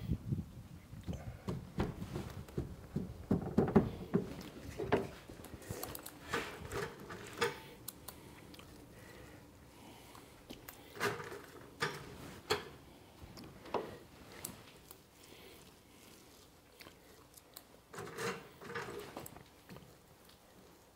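Soft handling sounds of a hand fiberglass lay-up: gloved hands pressing glass cloth onto a fiberglass panel, then a small brush dabbing resin into the cloth. Busier rustling in the first few seconds, then scattered single taps and rustles.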